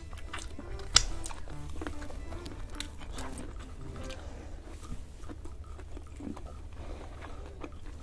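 Close-up eating sounds over soft background music: chewing, wet mouth clicks and smacks from eating butter garlic shrimp by hand, with a sharp click about a second in.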